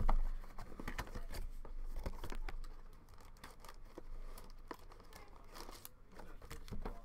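Foil wrappers of Panini Prizm Draft Picks basketball card packs being torn open and crinkled by hand: rustling, tearing and small crackly ticks, busiest in the first couple of seconds and lighter after.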